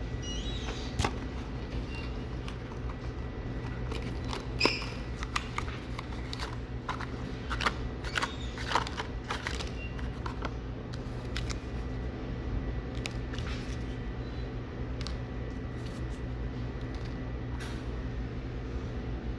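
Condom box and wrapped packets being handled: scattered small clicks and crinkly rustles, busiest in the first half, over a steady low hum.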